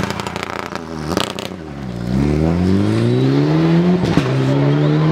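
Mitsubishi Lancer Evolution rally car's turbocharged four-cylinder engine, with a few sharp exhaust pops as the driver lifts off through a tight turn. The revs sink low, then the engine accelerates hard with a steadily rising pitch and changes up a gear about four seconds in.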